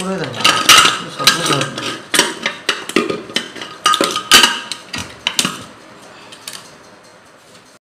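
Aluminium pressure cooker's lid being fitted onto the pot and turned shut, with a quick run of metal clanks and scrapes that ring briefly, most of them in the first five seconds.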